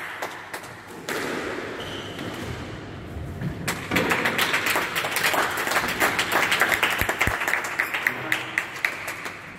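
Spectators clapping: dense applause that picks up about four seconds in and keeps going, with a couple of dull thumps.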